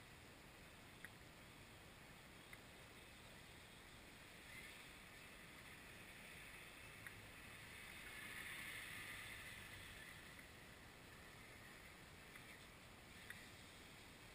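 Near silence: a faint steady hiss that swells slightly about eight seconds in, with a few tiny clicks.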